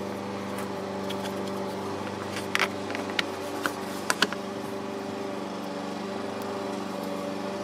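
A handful of short plastic clicks and taps, bunched about two to four seconds in, as the garage door opener remote's case and parts are handled and fitted back together, over a steady low hum.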